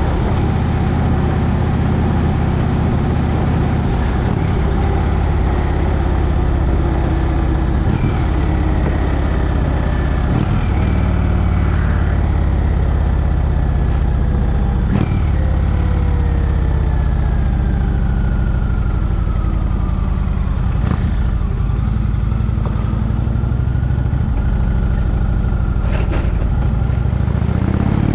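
Motorcycle engine running steadily at cruising speed, heard from the handlebars with wind rushing over the microphone.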